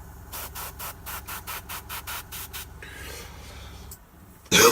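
Airbrush spraying paint in rapid short pulses, about six a second, then a longer steady hiss, over the low hum of the airbrush compressor, which stops about four seconds in. A loud throat-clear comes near the end.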